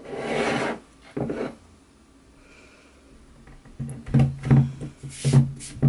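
A plaster face cast and a plaster-jacketed silicone mold being moved about on a wooden tabletop: a scraping rub at the start, a shorter one a second later, then a quick run of knocks and bumps in the last two seconds.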